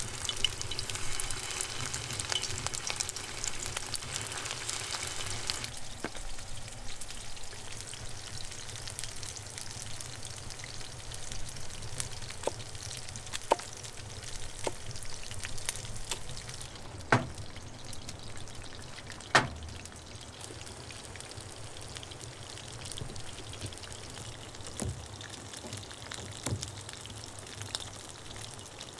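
Minced-meat kebabs sizzling in hot oil in a cast iron skillet; the hiss is dense for the first six seconds and then cuts off. After that a knife chops on a wooden stump, giving a few sharp knocks, the loudest two about two seconds apart in the second half.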